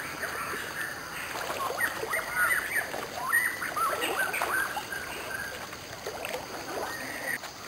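Water sloshing and splashing as a person wades knee-deep through a shallow creek, with many short high chirps over it, densest in the first half.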